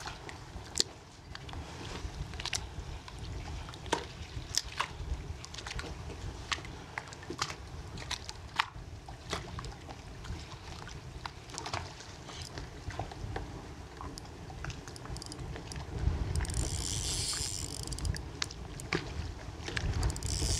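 Water lapping and sloshing against a kayak's hull, with scattered sharp clicks and knocks and a low rumble throughout. A louder rush of noise comes in twice near the end.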